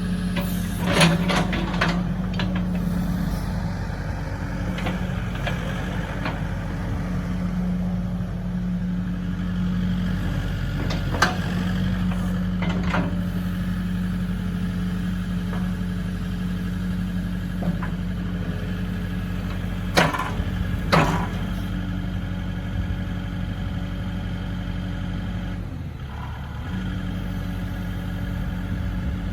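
Takeuchi TB290 excavator's diesel engine running steadily, with a handful of sharp knocks scattered through: one about a second in, two in the middle and a close pair later. The engine note drops briefly near the end and then recovers.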